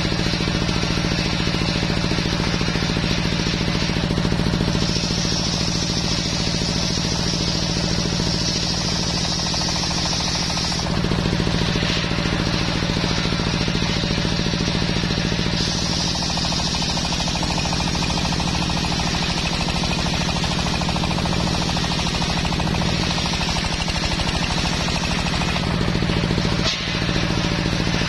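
Belt-driven table circular saw ripping a teak beam lengthwise, its drive motor running steadily. A higher cutting hiss comes in over the running sound in stretches as the wood is fed into the blade.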